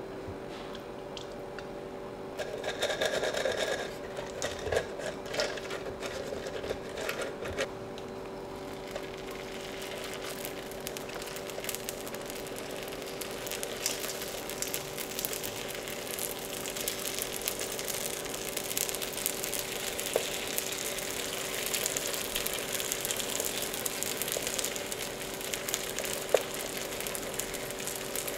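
Thick puff-puff batter squishing as it is pulled and worked in a glass bowl, then a growing sizzle as batter is spread onto the hot plates of an electric waffle maker. A steady hum runs underneath throughout.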